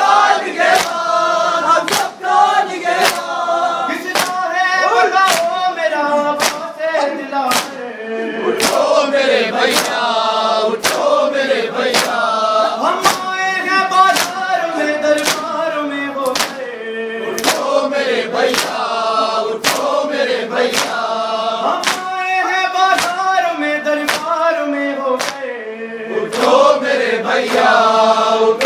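A noha recited by a lead male voice and chanted in unison by a crowd of men, with rhythmic chest-beating (matam): flat-hand slaps on bare and clothed chests falling together a little under twice a second.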